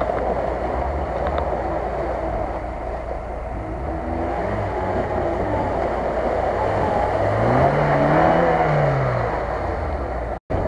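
Lada Niva 4x4's four-cylinder engine revving under load as it churns through deep mud with its wheels spinning. About eight seconds in, the revs rise and fall once; the sound cuts out briefly just before the end.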